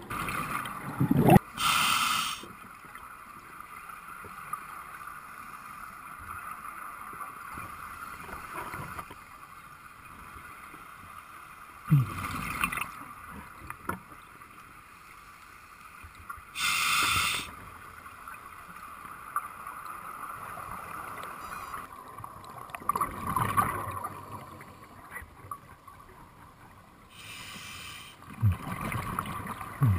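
Scuba breathing heard underwater: several short hissing rushes of inhalation through a regulator and gurgling bursts of exhaled bubbles, seconds apart. A steady hum runs beneath them.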